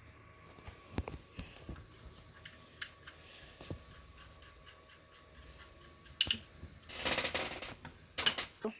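Light clicks and taps of small parts and a screwdriver being handled on a work surface, with two short bursts of scraping or rustling in the last two seconds.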